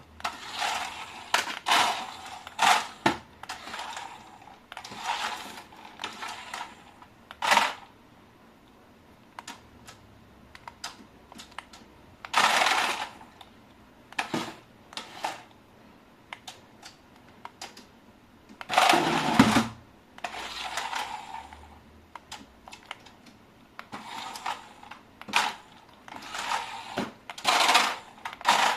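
Irregular plastic clicks and taps mixed with short rustles and swishes, as toys and their packaging are handled during an unboxing.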